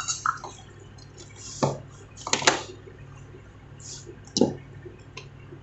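Handling noise of wires and tools on a workbench: a few sharp taps and knocks with light rustling, the loudest about two and a half seconds in and another near four and a half seconds, over a faint steady low hum.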